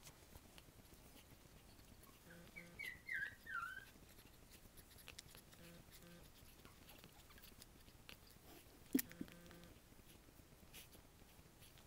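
Two-week-old Havanese puppy giving a quick run of four or five high, falling squeaks a couple of seconds in. About nine seconds in comes a single sharp click.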